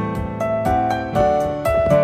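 Background music: a keyboard melody of held notes over a steady beat of about four ticks a second.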